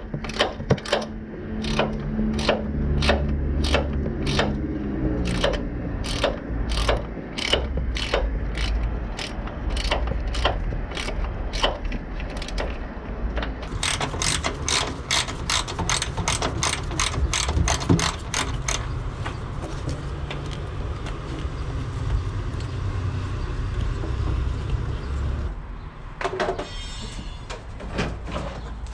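Hand ratchet wrench clicking on the hood hinge bolts. It runs in even strokes of about two clicks a second, then clicks faster for a few seconds. A short scrape of metal near the end.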